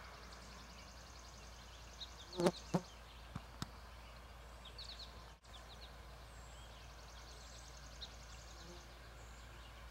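Faint outdoor ambience with a steady low hum and small birds chirping and trilling in the distance. Two sharp knocks about two and a half seconds in are the loudest sounds, followed by a lighter click.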